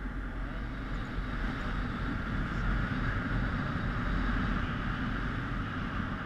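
Airflow in paraglider flight buffeting a helmet-mounted GoPro's microphone: a steady low rumble with a hiss on top.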